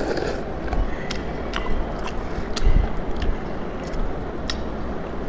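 A person eating noodles: chewing with scattered short, sharp clicks.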